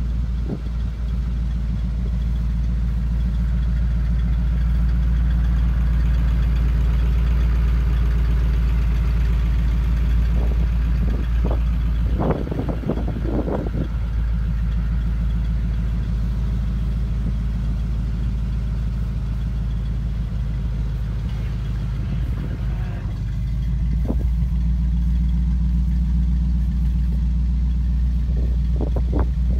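1966 Chevrolet 60 grain truck engine running steadily while the grain box is tipped up, with a few sharp knocks, mostly a cluster about halfway through and a couple near the end.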